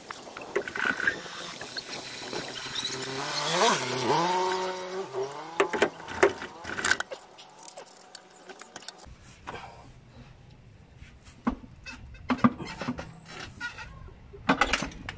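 Short metallic clicks and knocks of a wrench and hands working bolts on a manual transmission. Around three to five seconds in, a pitched, voice-like sound rises and falls.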